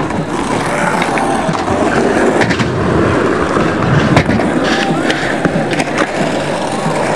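Skateboard wheels rolling over the park's ramps and ground, with several sharp clacks of the board striking the surface, the loudest about four seconds in.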